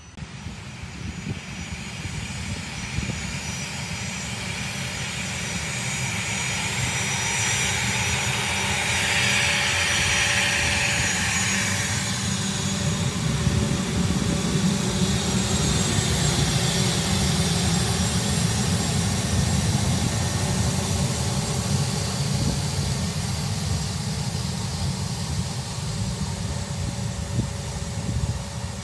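Aircraft engines whining and running at high power as the plane takes off from the highway, the sound building over the first several seconds and then holding loud and steady.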